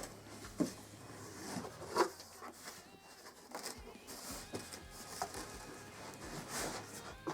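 Cardboard shipping box and its packing being handled and opened: scattered knocks, scrapes and rustles.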